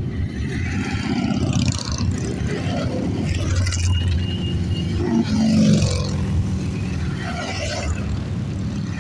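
Motorcycles riding past one after another, their engines running steadily, with the pitch falling as one goes by about five seconds in.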